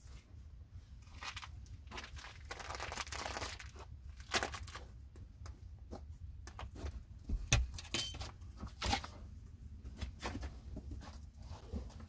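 Rustling and crinkling of a plastic bag and jacket, with scattered knocks and clacks of wood being handled. A longer stretch of rustling comes about two to three seconds in, and the loudest knock, with a dull thud, comes about seven and a half seconds in.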